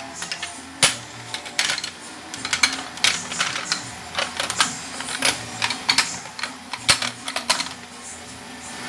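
Irregular sharp clinks and clatters of kitchen items, dishes, pans or stove parts, being handled and set down, about two or three knocks a second.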